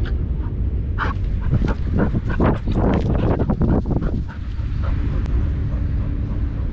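Dog barks and yips, clustered in the first half, over a constant low rumble of wind buffeting a microphone carried on a running dog.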